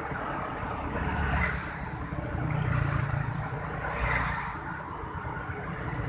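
Road traffic noise heard from a moving motorbike: a steady engine and road rumble that swells a few times.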